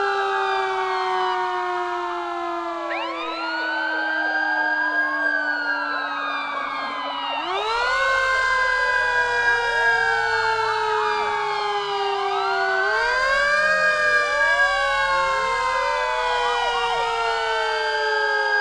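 Several police sirens wailing at once, their rising and falling pitches overlapping. Under them one low tone slides slowly downward and jumps back up twice, about seven and thirteen seconds in.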